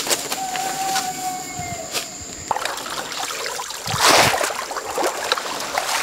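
Shallow muddy water sloshing and splashing as a large woven bamboo fish basket is worked through it by a wading man, with one louder splash about two-thirds of the way in.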